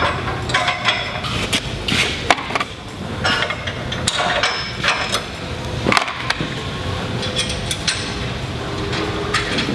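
Irregular clicks and knocks of a 360 one-piece breakaway drop mount being handled and fitted against a sprayer boom, over a steady low hum.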